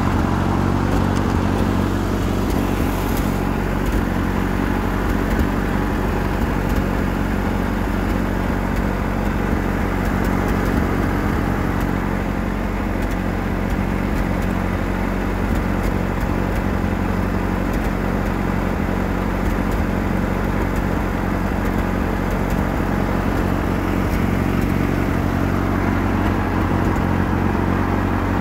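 Ford 9N tractor's four-cylinder flathead petrol engine running steadily while the tractor drives, an even low drone with no change in speed.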